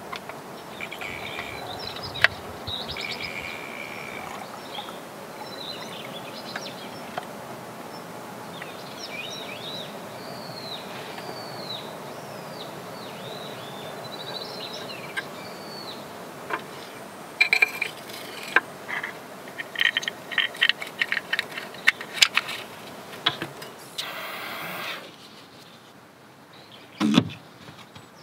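Birds chirping over steady outdoor background noise, then a run of small clicks and taps as the brass and glass parts of a candle lantern's oil-burner insert are handled and screwed together, with a brief hiss and a dull knock near the end.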